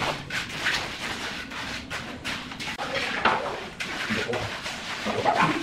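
Steel trowel scraping and spreading wet concrete in irregular strokes. A short gliding cry is heard near the end.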